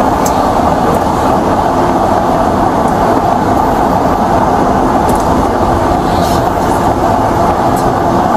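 Steady, loud cabin noise inside a moving car, from the road and the engine, with a few faint, scattered ticks.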